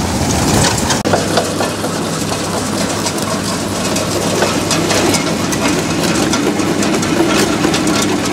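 Heavy diesel machinery engine running steadily, with scattered clatter and knocks over it.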